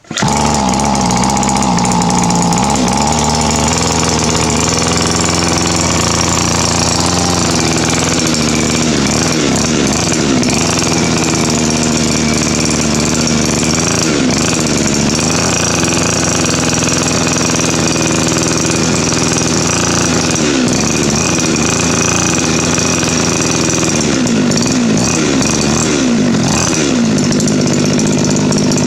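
Gas string trimmer engine starting up abruptly and running loudly at a fairly steady speed, with a few brief dips and rises in pitch. It runs again now that its carbon-clogged exhaust muffler has been burned clean.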